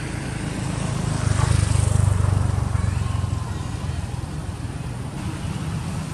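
Low rumble of a passing motor vehicle, swelling about a second in and fading after about three seconds.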